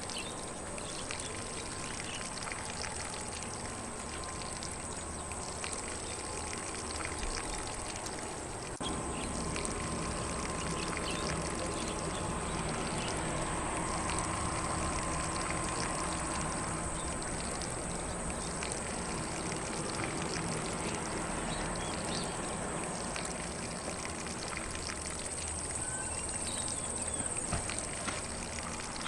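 Lawn sprinkler spraying water onto grass: a steady, continuous hiss and patter of spray, a little louder from about nine seconds in.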